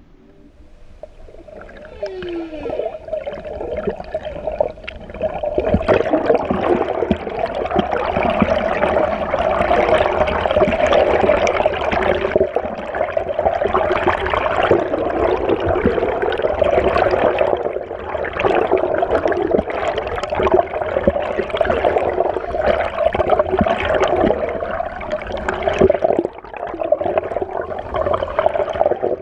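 Humpback whale singing: long held tones, with a short falling sweep about two seconds in, growing loud from about five seconds in.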